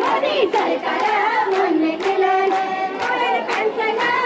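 A group of people singing a song together, with steady rhythmic hand-clapping a little over twice a second keeping time.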